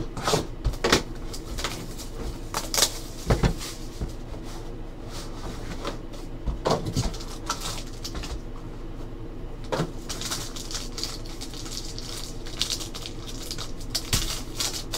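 Handling and opening a sealed trading-card box: sharp clicks and knocks of cardboard and plastic wrap in the first few seconds. Near the end comes crinkly rustling as a foil pack wrapper is torn open.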